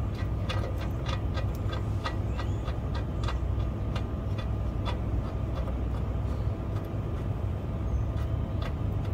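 Light metallic clicks and taps of a hand tool working the bolts of a semi truck's rear light panel, coming quickly at first and thinning out after about five seconds, over a steady low rumble.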